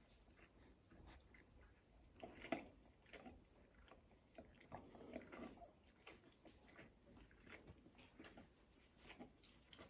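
Faint wet licking and mouthing sounds of an adult dog washing puppies: scattered soft smacks and clicks, with a louder one about two and a half seconds in and a cluster around five seconds.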